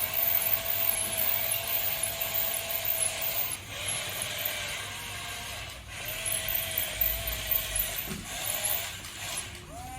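Electric motor and gearbox of a radio-controlled toy running with a steady whine over a gritty gear noise. It cuts out briefly twice.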